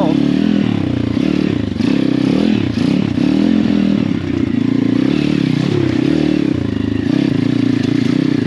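Pit bike's swapped-in 150cc single-cylinder four-stroke engine revving up and down again and again as the throttle is worked over rough trail, with the bike clattering over roots and rocks.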